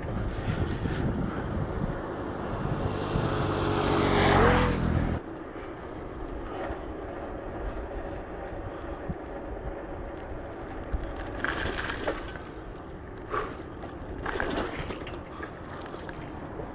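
Bicycle riding on a rough asphalt road, with wind on the microphone and tyre rumble. For the first five seconds a motor vehicle's engine is heard, rising in pitch and loudest about four seconds in, then cutting off suddenly. A few short knocks and rattles come later, as the bike goes over cracks.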